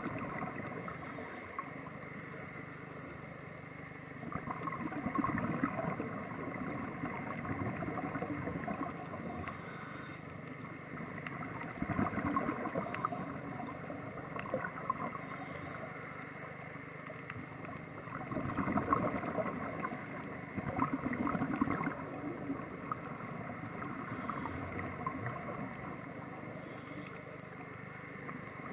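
Scuba regulator breathing underwater: a hiss on each inhalation every few seconds and a bubbling, gurgling rush on each exhalation, over a steady low underwater hum.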